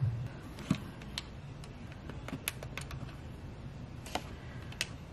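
Buttons on a digital LED alarm clock being pressed during setup, a string of about eight light, irregularly spaced clicks.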